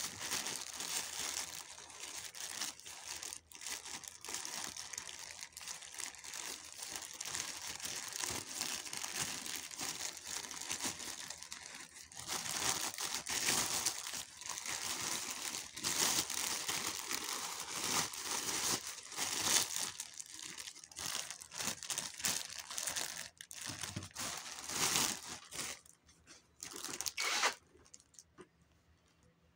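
Plastic packaging crinkling and rustling as it is handled by hand: a grey plastic mailer bag being pulled open and clear plastic wrap around the sandals. It gets louder about halfway through and stops shortly before the end.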